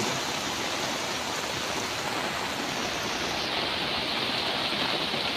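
Heavy rain pouring down steadily onto a flooded street, a dense even hiss.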